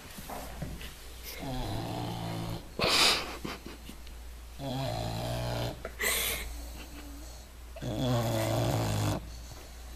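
English bulldog snoring in deep sleep: three long, low snores about three seconds apart, with a short, loud, noisy breath about three seconds in.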